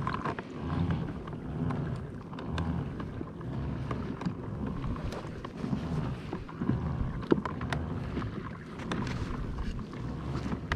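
Wind on the microphone and water moving around a kayak at sea, a steady low rumble with scattered sharp ticks of raindrops.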